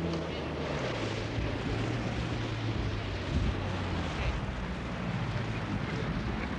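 Wind rushing and buffeting on the microphone in an exposed coastal spot, with a low steady drone underneath for a few seconds.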